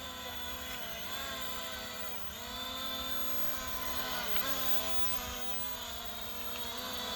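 F89 quadcopter drone's motors and propellers whirring in flight, the pitch dipping briefly three times.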